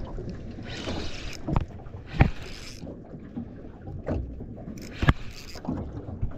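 Water slapping against the hull of a small boat, with wind on the microphone and a few sharp knocks, the loudest about two seconds in.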